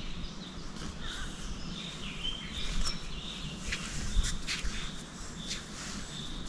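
Birds calling in short chirps, with a few sharp clicks in the middle and a low rumble of wind or water underneath.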